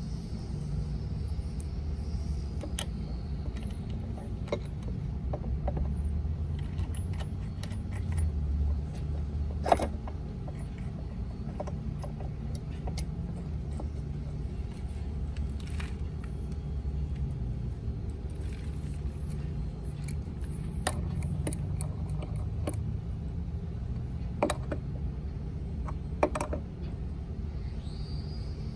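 Scattered metallic clicks and knocks of tools and parts being handled, over a steady low rumble.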